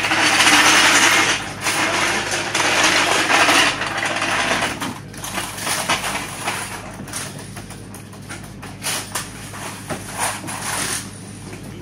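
Rally car service work. A loud noisy rush for the first four seconds or so, then scattered sharp clinks and knocks of tools and jacks, over a steady low hum.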